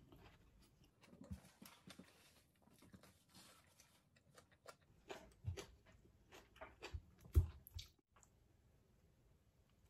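Close-miked eating sounds: a person chewing with wet lip smacks and mouth clicks, growing louder and busier about five seconds in, with the loudest smack near seven and a half seconds, then stopping about eight seconds in.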